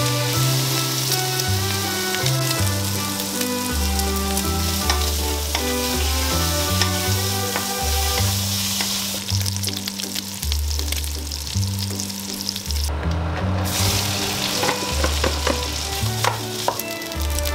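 Pork belly pieces sizzling in a hot wok, stirred with a wooden spatula, over background music with a stepping bass line. About thirteen seconds in, the sizzle cuts out briefly, then returns with spatula scrapes and taps as cooked rice is stirred in.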